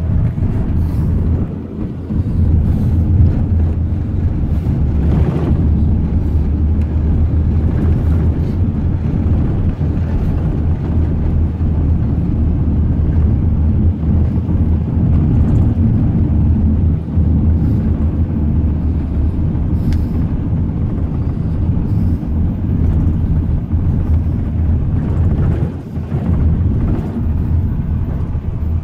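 Van cabin noise while driving on an unpaved gravel road: a steady low rumble of engine and tyres, with occasional short knocks and rattles.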